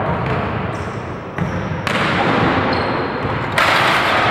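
Basketballs bouncing on a hardwood gym floor amid the echoing noise of a team practice. A louder rush of noise starts near the end.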